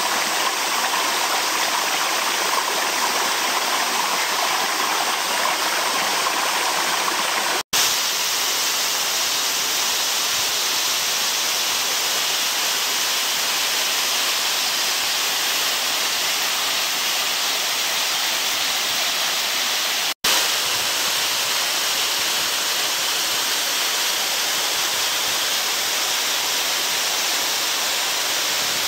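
Waterfall: a steady rush of falling water, a dense even noise. It cuts out briefly twice, about 8 and 20 seconds in.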